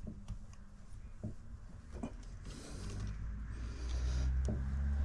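A few light clicks and knocks of hand work on the fuel pipe clamps, then a low, steady vehicle engine hum builds from about three seconds in and grows louder toward the end.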